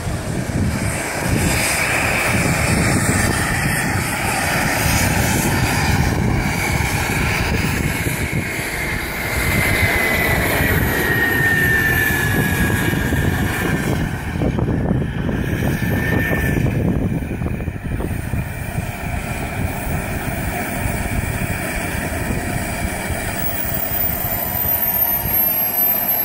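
Wren 80i gas turbine on a radio-controlled jet boat running at limited throttle: a steady rushing jet noise with a thin whine whose pitch falls slowly as the boat passes. Near the end a very high whine glides down in pitch as the boat comes in.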